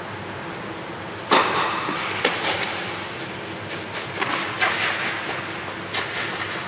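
Tennis ball struck by rackets and bouncing on a clay court during a rally: a string of sharp pops and thuds with a short echo under an air-dome roof, the first and loudest about a second in.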